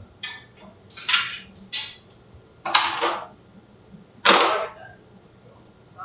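Metal-on-metal clanks and scrapes as a dilution refrigerator's outer vacuum can is twisted and dropped onto its bayonet clamps: about five sharp metallic knocks, one with a brief high ring.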